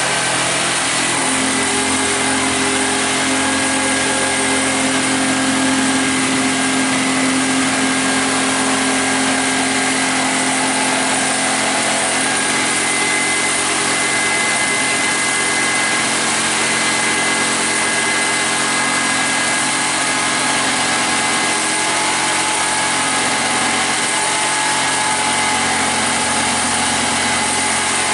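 Corded electric power tool running continuously, a steady motor whine over dense mechanical noise, with a slight change in tone about halfway through.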